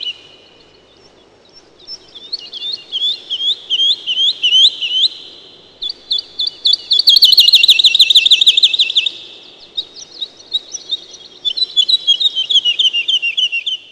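Tree swallow twittering: quick runs of short, sharp chirps in three bursts after a brief lull, the middle burst the fastest and loudest.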